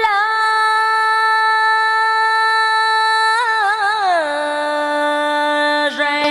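A woman singing one long drawn-out note in Vietnamese cải lương style. About three and a half seconds in she adds a quick ornament, then slides down to a lower note and holds it.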